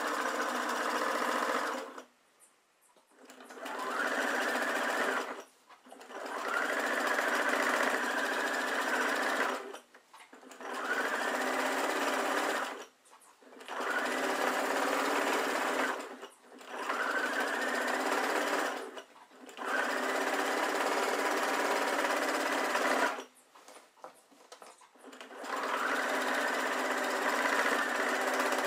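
Domestic sewing machine stitching through the layers of a pinned quilt. It runs in bursts of a few seconds, stopping and starting about eight times as the quilt is repositioned.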